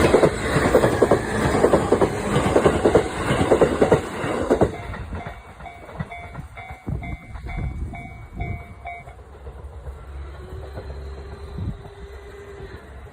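Train passing over a Japanese level crossing, its wheels clattering over the rail joints, dying away after about five seconds. The crossing's warning bell keeps dinging at about two strokes a second until it stops about nine seconds in, and a steady hum follows for a couple of seconds near the end.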